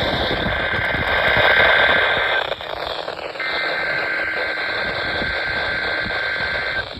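NOAA Weather Radio SAME header for a Required Weekly Test: a harsh two-tone data screech heard over radio static. It comes in two bursts, with a pause of about a second between them a little before halfway.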